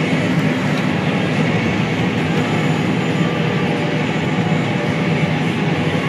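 Combine harvester running at a steady drone, heard from inside its cab.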